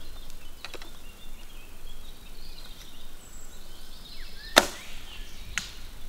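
Arrows being shot from a bow at a fallen tree: sharp cracks of the released string and arrows striking the wood. A faint one comes near the start, the loudest about two-thirds of the way in, and another a second later.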